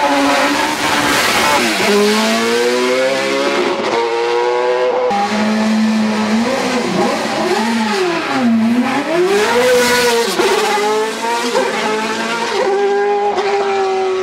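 Single-seater race car engine revving hard at the start line, then pulling away, its pitch dropping and climbing again through the gears.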